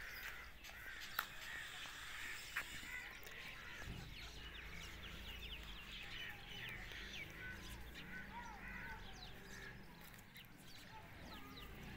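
Quiet yard ambience: birds chirping in quick little series, with a few lower calls and occasional faint knocks over a low steady rumble.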